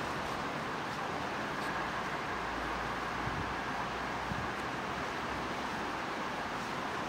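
Steady outdoor background rush with no distinct event, of the kind made by wind on the microphone or distant road traffic.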